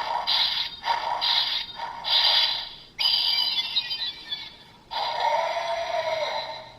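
Electronic sound effects playing from the DX Dark Seiza Blaster toy's small speaker: three short bursts, then a falling sweep about three seconds in, then a longer burst that stops shortly before the end.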